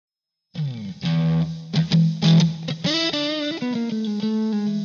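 Guitar music: a few struck chords, then a run of single notes.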